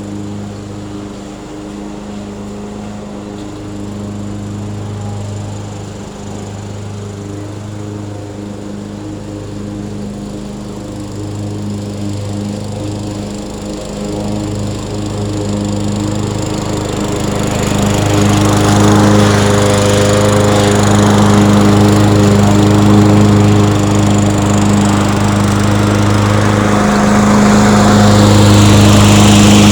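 Murray 22-inch self-propelled walk-behind lawn mower engine running steadily under load. It grows louder and rougher from about two-thirds of the way through.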